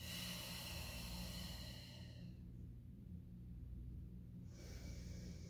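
A woman's audible breathing through the mouth during a Pilates chest lift: a long exhale of about two seconds at the start, then a shorter breath near the end.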